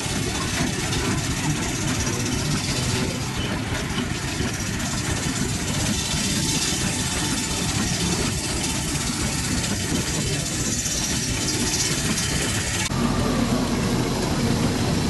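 Steam-driven sawmill machinery running steadily, a continuous mechanical din with no saw cut standing out. Near the end it changes to a Hyster forklift's engine idling, a steady low hum.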